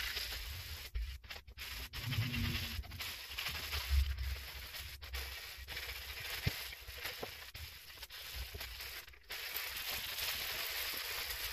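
Hand wet sanding of the primed hull of a Yamaha GP1300R WaveRunner: a sanding pad scrubbing back and forth over the wet primer, heard as a steady scratchy hiss. There are a couple of low thumps about two and four seconds in.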